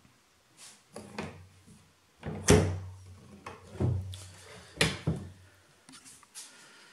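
Brass latches and wooden lid of an old travel trunk being unfastened and opened: a series of clacks and knocks, the loudest about two and a half seconds in.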